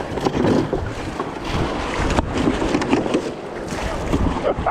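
Whitewater rushing around a raft in high river flow, with wind buffeting the microphone in a steady low rumble.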